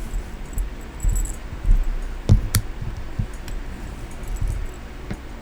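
Small craft pieces being handled on a tabletop: irregular low bumps and knocks with light metallic jingling and a few sharp clicks, the sharpest about two and a half seconds in.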